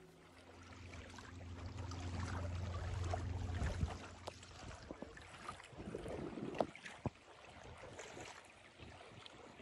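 Lake water lapping and splashing, with wind on the microphone. A low steady hum runs through the first four seconds, and a few sharp knocks come after the middle.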